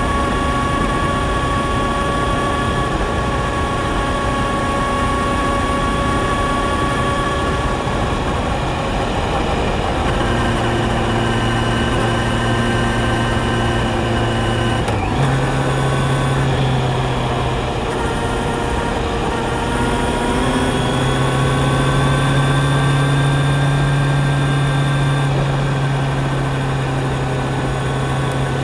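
Kawasaki Z900's inline-four engine running under way, a steady stack of engine tones. About halfway through there is a brief click and a sudden step up in pitch, and a few seconds later the pitch climbs gradually as the bike accelerates, then holds.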